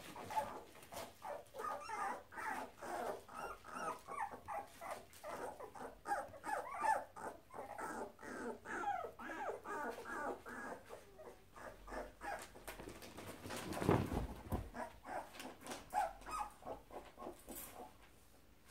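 Young, not-yet-weaned cocker spaniel puppies squeaking and whimpering, many short high cries in quick succession, about three or four a second. A single louder bump comes about three-quarters of the way through.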